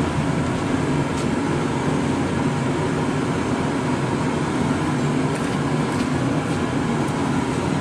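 Gas burner under a large pot of boiling noodle water running with a steady low rumble. A few faint light clicks sound over it.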